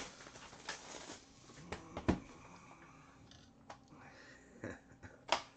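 Plastic shrink wrap crinkling as it is torn off a trading-card box, with scattered taps and clicks of the box being handled; a dull thump about two seconds in and a sharp click near the end.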